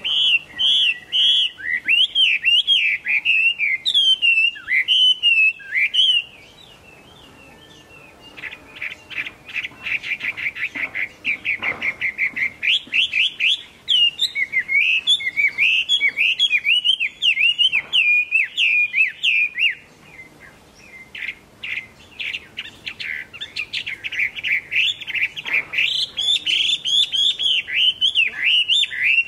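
Chinese hwamei singing a loud, varied song of rich whistled phrases and fast runs of rapidly repeated notes, with short pauses about six seconds in and again about twenty seconds in.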